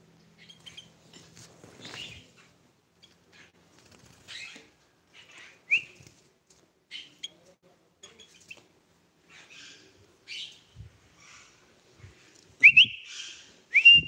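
Sooty-headed bulbul (kutilang) giving short, scattered chirps, with a few quick rising whistles, the loudest two near the end.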